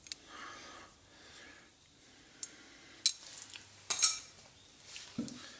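A few sharp metallic clinks and taps, with a close pair a little after the middle, as small rusted motorcycle exhaust clamp parts are handled.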